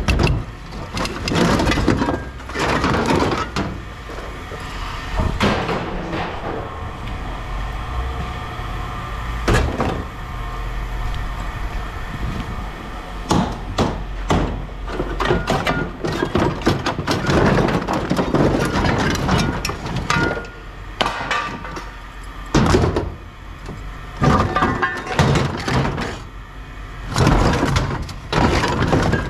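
Heavy scrap metal being pulled loose and shifted: irregular clanks, bangs and scrapes of metal parts knocking together.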